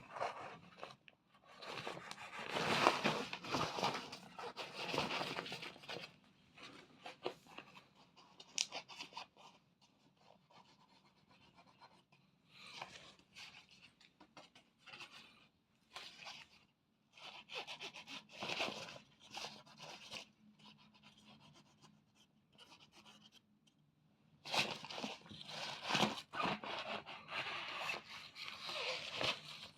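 Rustling and scraping in irregular bursts, with quieter gaps between them, as a cat plays in and around a crinkly cat tunnel and with a teaser wand.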